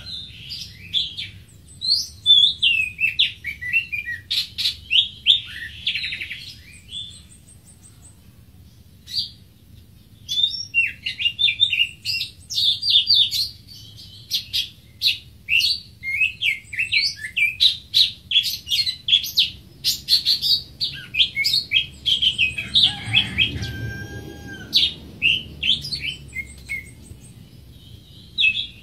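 Greater green leafbird singing a fast, varied run of chirps and whistled slurs. It pauses a few seconds after about seven seconds, then sings on almost without a break.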